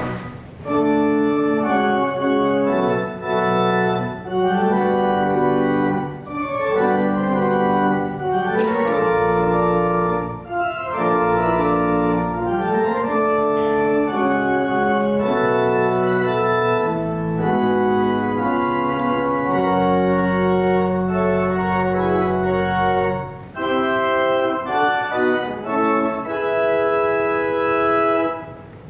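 Church pipe organ, newly installed, playing sustained chords over long-held bass notes. The chords change every second or so, with brief breaks between phrases.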